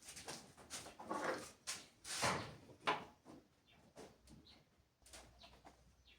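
Irregular clicks, knocks and clatter of hard parts and tools being handled, loudest a little past two seconds and again near three seconds in.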